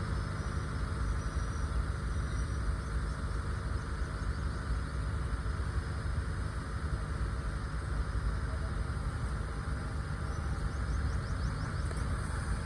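Truck engine running steadily, a constant low drone with no revving or clear changes.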